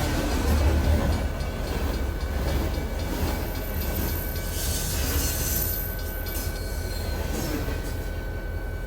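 Train passing with a steady low rumble. A thin, high-pitched squeal is heard for about two seconds midway, typical of train wheels. The sound grows quieter near the end.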